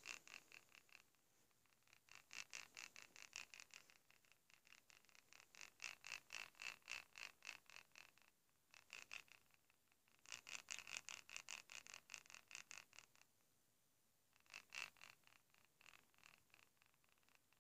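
A tilt-triggered toy purr box from a kitten plush, worn inside a fursuit head, makes a faint cat purr each time the head is shaken. It comes in about seven bursts of rapid pulses, each up to about three seconds long, with short gaps between.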